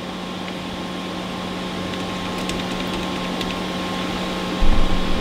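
Steady hum and whir of running electronic test equipment, with a low steady tone and a higher whistle-like tone over a fan-like hiss. A low rumble comes in near the end.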